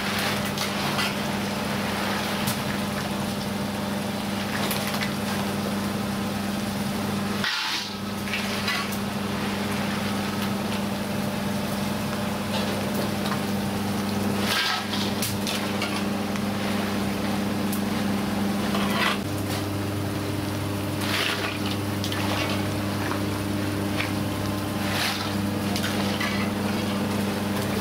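Rice crackers deep-frying in a wide pan of hot oil with a steady hiss, over a constant low hum. Now and then a metal slotted ladle scrapes and knocks against the pan and pots as the crackers are scooped out.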